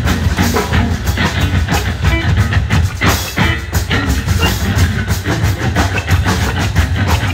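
Live noise rock: distorted electric guitar over busy, continuous drum-kit playing, loud and dense with no break.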